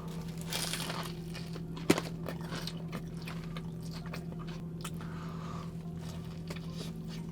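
A big bite into a thick gyro wrap, then chewing close to the microphone: a crunchy bite about half a second in, a sharp click near two seconds, then many small wet mouth clicks as the mouthful is chewed.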